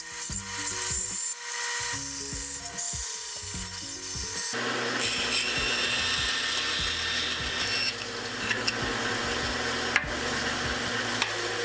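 Bandsaw running and cutting through a thin wooden board, on freshly fitted bandsaw tires and a new blade. The cutting noise grows fuller and steadier about halfway through. Background music plays under it.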